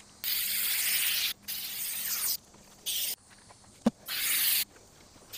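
Thompson's water sealer hissing from a spray can in four bursts, the first two about a second long and the later ones shorter, coating a concrete planter. There is a single short click between the third and fourth bursts.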